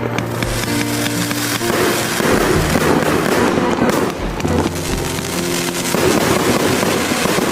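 Chinese consumer firework cake firing continuously, a dense crackling of shots and bursts with no break. Faint background music runs underneath.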